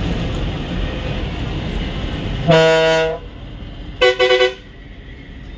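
Vehicle horns sounding over a bus's engine and road noise heard from the driver's cabin. One long, low horn blast about halfway through, then about a second later three quick, higher-pitched toots.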